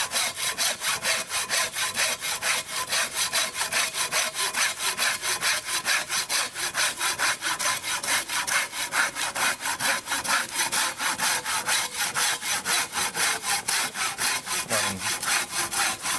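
Large hand saw cutting through a cedar log in quick, even back-and-forth strokes.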